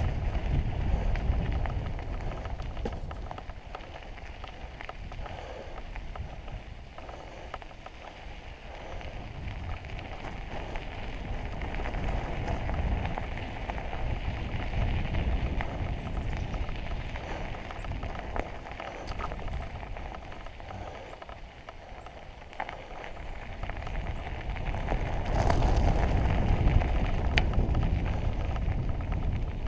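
Mountain bike riding on a dirt trail: wind rumbling on the camera's microphone over a crackle of tyres rolling on dirt and gravel, with small clicks and rattles from the bike. The noise swells and eases several times, loudest near the end.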